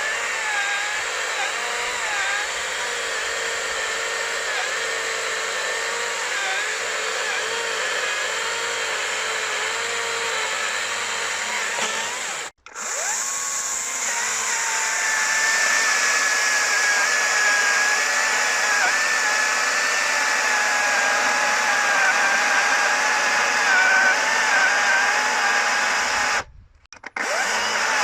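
Hychika CS40B 36-volt brushless cordless chainsaw running at full speed while cutting through a thick log, its electric whine wavering in pitch as the chain takes the load. The sound cuts out abruptly about twelve seconds in and again near the end, and is louder after the first break.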